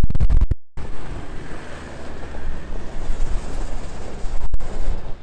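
Toyota Land Cruiser's 3.0 diesel engine pulling steadily up a snowy track, a low rumble under heavy wind noise on the microphone. The sound drops out briefly near the start and again about four and a half seconds in.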